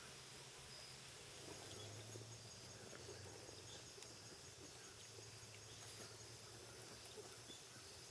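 Near silence: faint outdoor ambience with a faint, steady insect chirring.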